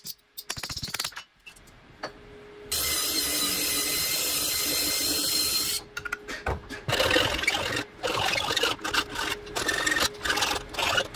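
A ball-peen hammer taps metal on an anvil a few times. A loud, steady hiss follows for about three seconds, then irregular scrubbing strokes of a hand wire brush and a file on metal.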